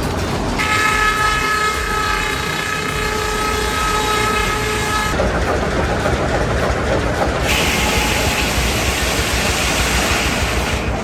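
A horn sounds a steady chord for about four and a half seconds over continuous engine rumble. About seven and a half seconds in, a harsh hiss starts and runs on.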